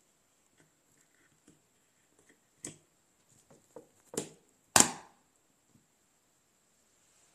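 Plastic screw cap of an Olpers milk carton being twisted open: small scattered clicks, a sharper click, then two short cracks a little over halfway through, the second the loudest, as the cap comes free.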